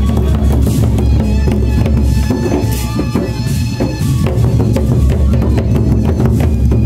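Gendang beleq ensemble: several large double-headed Sasak barrel drums beaten together in a loud, dense, driving rhythm of deep strokes.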